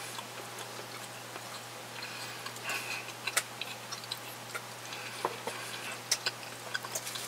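Close-up chewing of a sausage sandwich with the mouth closed: soft, irregularly spaced wet clicks and smacks, over a low steady hum.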